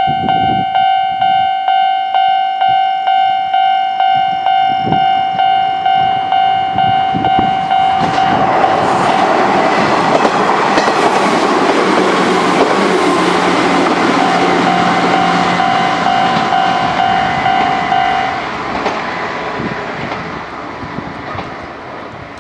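Japanese level-crossing warning bell ringing steadily at about two strokes a second. About eight seconds in, an Izuhakone Railway 3000 series electric train runs over the crossing, its wheels clattering over the rail joints and drowning out the bell. The bell stops a little after eighteen seconds in as the train noise fades away.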